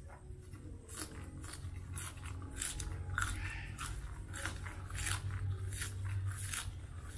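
Close-up chewing of raw leafy greens: crisp, wet crunches about twice a second as a mouthful of raw tespong leaves and stems is bitten and chewed. A steady low hum runs underneath.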